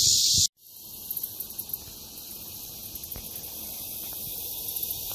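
Steady high-pitched insect chorus, a hiss-like drone with faint chirps in it. It cuts out abruptly about half a second in, then comes back quieter and slowly grows louder.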